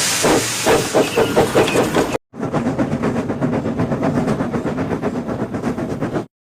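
Steam engine sound effects: a loud blast of steam hiss with fast chuffs that stops after about two seconds, then, after a brief gap, a run of rapid, steady chuffing with hiss that cuts off abruptly.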